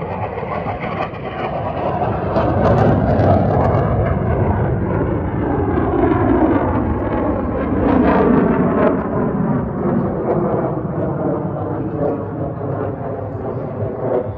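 Engine noise of a single F-16 fighter jet climbing away overhead: a loud, continuous jet rush whose tone seems to sweep up and down as it passes. A few sharp crackles come about three seconds in, and the sound eases a little in the last few seconds.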